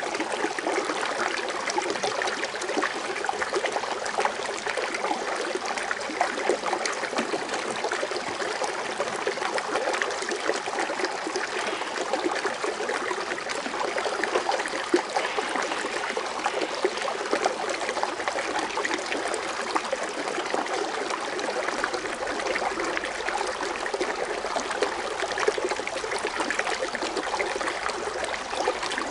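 Foaming water fountain splashing and trickling steadily, with no change or pause.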